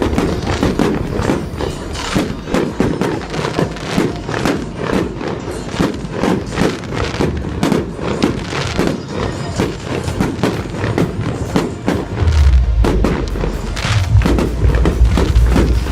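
Fireworks going off in a dense, irregular run of bangs and crackles, with music playing along. A heavy low rumble comes in about three-quarters of the way through.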